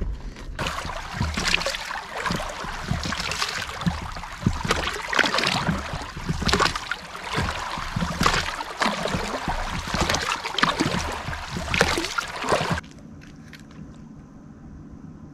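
Water sloshing and splashing against the inflatable pontoons of a float tube as it moves across the water, in irregular splashes every second or so. It cuts off suddenly near the end, leaving a quiet, steady background.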